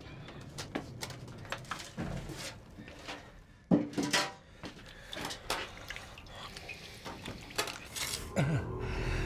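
Scattered clinks and knocks of metal kitchenware, pots, pans and utensils being handled, with one louder knock about four seconds in.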